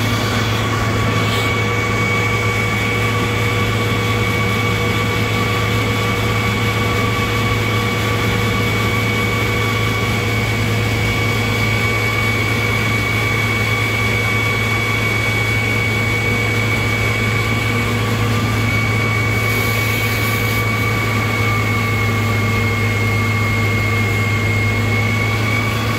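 Fire engine's engine and fire pump running steadily under load, pumping water out of the tank through a 2¼-inch hose line at about 233 gallons per minute. There is a constant low hum with a steady high whine over it.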